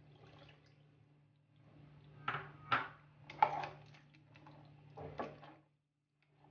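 Milk being poured into a frying pan of macaroni, then a spatula stirring the pasta and knocking against the pan several times, over a steady low hum.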